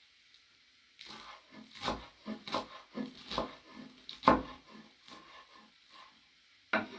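Kitchen knife chopping fresh parsley on a wooden cutting board. A run of uneven chops, about three a second, starts about a second in and stops about a second before the end, with one last chop near the end.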